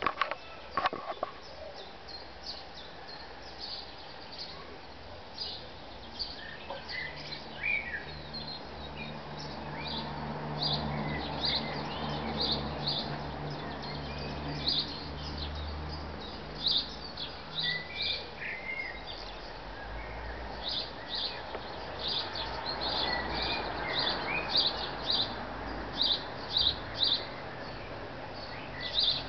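Small garden birds chirping: short high notes repeated in quick runs all through, with a few lower whistled slurs now and then. A low steady hum sits underneath through the middle stretch.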